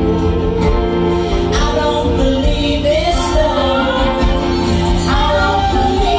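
A live band playing a song: several voices singing in harmony over an acoustic guitar, with a steady low bass underneath.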